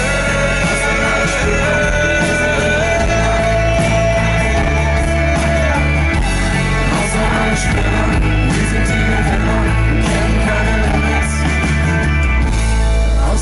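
Live pop-rock band playing loud through a concert PA: acoustic guitar, a heavy bass line and a beat, with singing over it. One long note is held through the first half.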